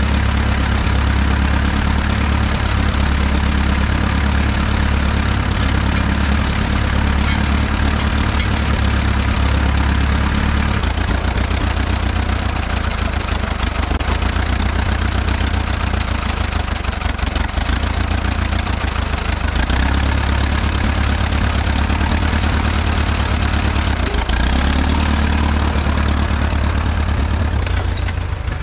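1936 Farmall F-12 tractor's four-cylinder engine running steadily at a low, even beat, freshly started after sitting unused for a year; it runs at idle and then while the tractor is driven, the sound shifting about eleven seconds in.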